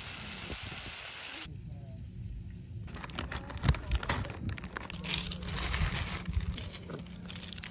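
Meat sizzling on foil over a grill, a steady hiss that cuts off about a second and a half in. From about three seconds in, a plastic instant-ramen packet crinkles and crackles as it is handled.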